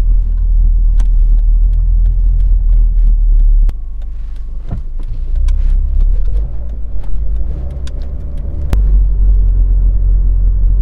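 Low rumble inside a moving car's cabin, road and engine noise, with a few sharp clicks. The rumble drops suddenly about four seconds in and comes back up about nine seconds in.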